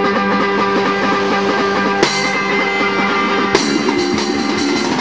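Rock band music: guitar and drum kit playing a fast beat over held chords, with a sharp crash about two seconds in and again about three and a half seconds in.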